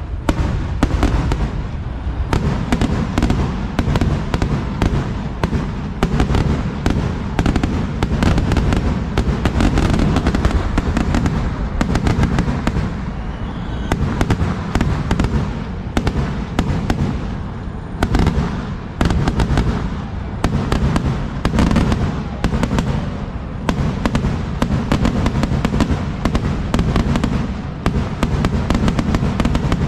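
Kerala-style festival fireworks (vedikkettu) going off at ground level in a loud, unbroken barrage of rapid cracks and bangs, too dense to count.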